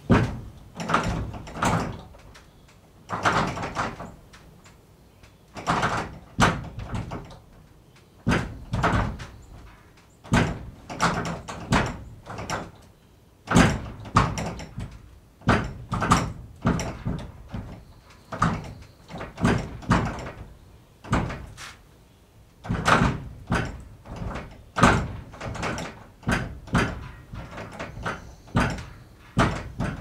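Barn door being banged repeatedly: a long series of heavy knocks and slams, often in quick runs of two or three, about every second or so, each with a short rattling tail.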